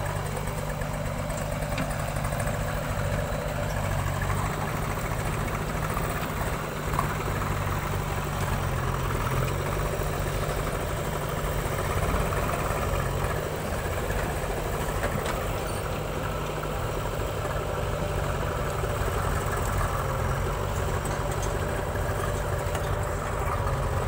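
Diesel engines of a farm tractor and a JCB backhoe loader running steadily.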